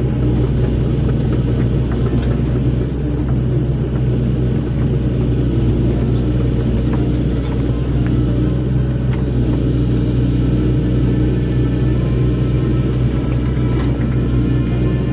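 Heavy diesel engine of earth-moving equipment running at a steady speed, a low, even drone with no change in pitch.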